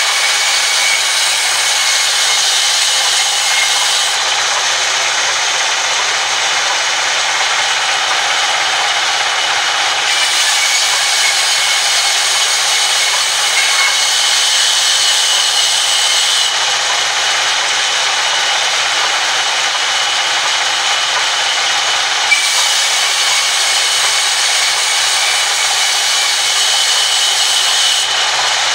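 Sawmill band saw running and cutting lengthwise through long timber planks fed by hand: a steady, loud sawing noise with a faint high whine, its upper range changing every six seconds or so. A single sharp click about two-thirds of the way through.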